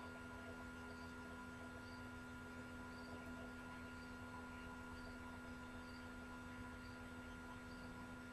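Faint, steady electrical hum made of several constant tones over a low hiss, with a soft high blip about once a second.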